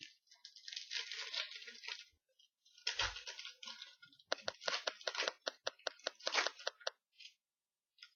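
A trading-card pack wrapper being torn open and crinkled: rustling tearing, a soft thud about three seconds in, then a run of sharp crackling crinkles.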